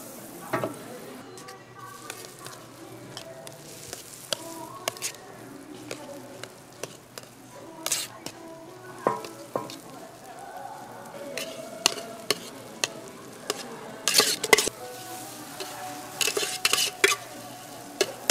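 Margarine sizzling on a flat steel griddle as portions of egg, cabbage and carrot omelette batter are laid onto it, with sharp clicks and clinks of metal tongs against a steel batter cup, busiest near the end.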